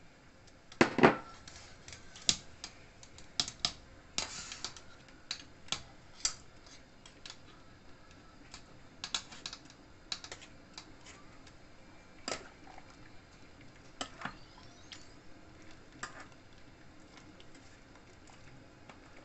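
A metal spoon scraping and tapping inside a fine-mesh metal strainer, pressing tamarind pulp through it into a pot of soup: irregular light clicks and scrapes, with a louder knock about a second in.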